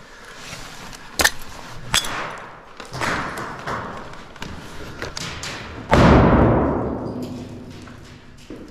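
Two sharp cracks of airsoft fire, then about six seconds in a loud bang that echoes and dies away over a couple of seconds in the hard-walled rooms of an empty building.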